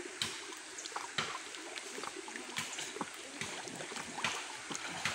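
River water running steadily, with scattered short clicks and splashes through it.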